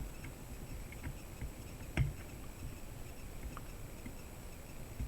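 Faint handling noise at the workbench: a few small clicks and one louder knock about two seconds in, over a low uneven rumble and a thin steady high-pitched whine.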